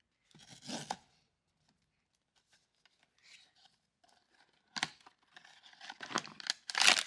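Blind box packaging being torn open by hand: a short rip in the first second, then a run of tearing and crinkling from about five seconds in, loudest near the end.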